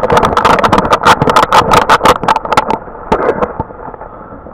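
Several people clapping their hands fast and irregularly, loud for about three and a half seconds, then thinning out and fading.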